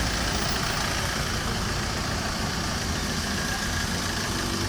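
A motor vehicle engine running steadily at idle.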